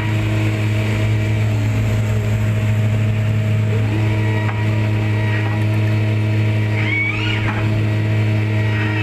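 A machine's engine running steadily with a constant low hum, and a brief high whine that rises and falls about seven seconds in.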